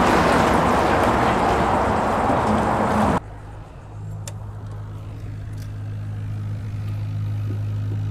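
Fishing boat running under way: a loud steady rush of motor, wind and water noise that cuts off abruptly about three seconds in. A low steady motor hum follows, with the boat stopped and the livewell aerator bubbling.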